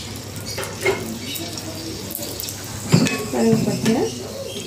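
Cinnamon sticks frying in hot coconut oil, a steady crackling sizzle, with a metal ladle knocking sharply against the pot or lid about three seconds in.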